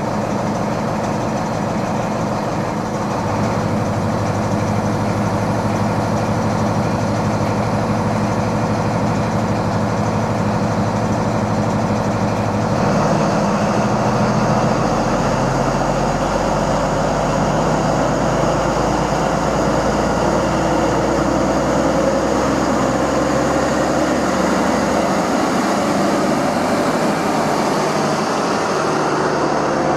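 An East Midlands Trains HST power car's Paxman VP185 diesel engine running steadily at the platform, then powering up a little under halfway through as the train pulls away. The engine note rises and gets somewhat louder, and holds there while the coaches roll past.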